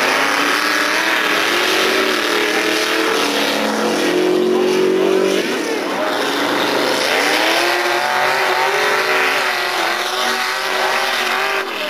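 A 427 V8 in a full-size K5 Blazer run at full throttle down a dirt drag strip. The engine note climbs steadily in pitch, dips about five or six seconds in, then climbs again.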